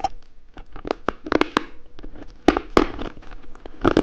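Plastic candy packaging being handled and unwrapped, with irregular sharp crinkling crackles, loudest about two and a half seconds in and again near the end.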